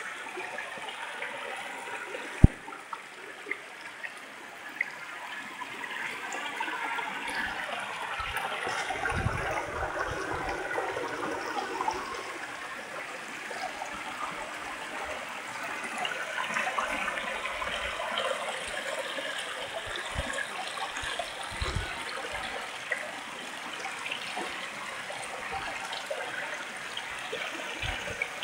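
Shallow mountain stream trickling and burbling steadily over rocks. There is one sharp click about two seconds in and a few brief low thumps later on.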